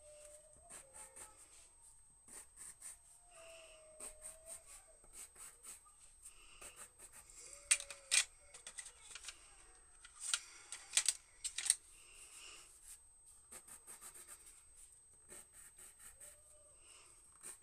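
Polychromos coloured pencil strokes scratching on toned kraft drawing paper, with sharp clicks of pencils being picked out of and set back into a metal pencil tin, the clicks loudest around the middle.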